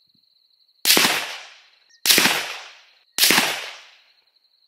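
Ruger American Ranch bolt-action rifle in 5.56 NATO firing three shots about a second apart, each report fading away over about a second.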